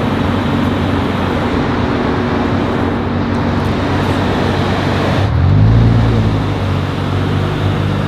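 A car on the move: steady road and engine noise. About five seconds in, the engine note rises and grows louder, then settles.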